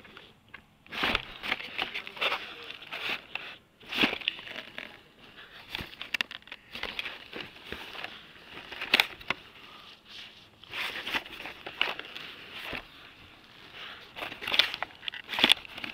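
Carded Hot Wheels die-cast cars in plastic blister packs clicking and crinkling against each other and the cardboard box as they are flipped through by hand, in irregular bursts.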